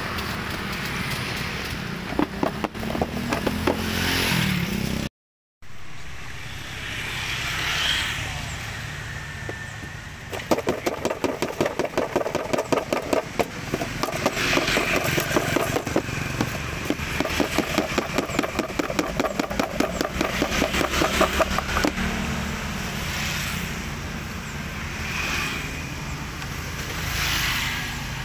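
Large kitchen knife slicing crystal guava into pieces in quick, even strokes, heard as a steady run of ticks for about ten seconds in the middle. Street traffic, with motorbikes, goes on underneath.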